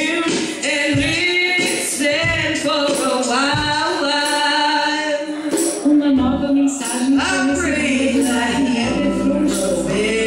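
A woman singing a slow soul ballad live into a microphone, with long wordless runs that bend up and down in pitch. Keyboard and hand drums (congas) accompany her, with steady low chords in the second half.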